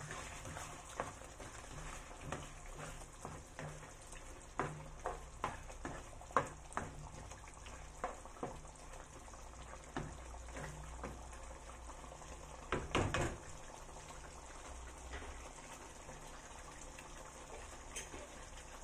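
Thai green curry in coconut milk simmering in a non-stick pan: a low steady hiss with thick bubbles popping at irregular intervals, and a short cluster of louder knocks partway through.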